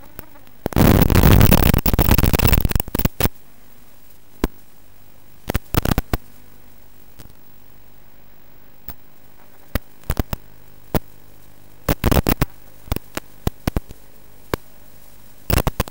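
Static hiss on an analog FPV video receiver's DVR recording, broken by sharp crackles. A louder spell of crackling static comes about a second in and lasts around two seconds, with further clusters of crackles later.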